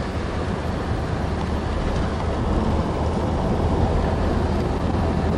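Steady road and engine noise heard from inside a moving car's cabin: an even low rumble with tyre and wind hiss.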